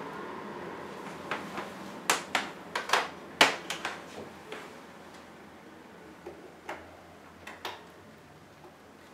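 Handling clicks and knocks from a cable plug being fitted into a camcorder on a microphone-stand arm, with the cable laid across the desk. A quick run of sharp clicks comes about a second in, followed by a few scattered ones.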